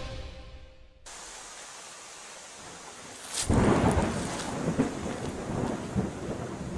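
Closing notes of intro music fade out in the first second. Then, about three and a half seconds in, a boot steps down hard right beside a ground-level microphone and footsteps crunch and rustle through dry leaf litter and grass, irregular and going on to the end.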